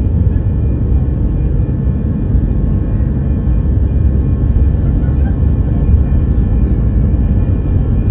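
Airbus A320 heard from inside the cabin: a steady, deep rumble of the jet engines and airflow with faint steady whining tones above it.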